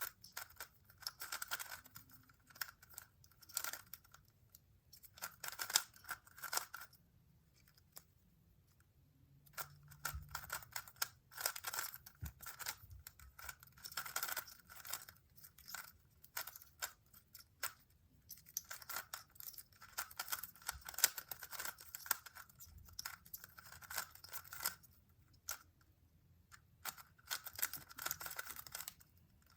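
Magnetic GAN megaminx being turned at speed in a solve: bursts of fast plastic clicking and scraping as the faces turn, broken by short pauses of a second or two.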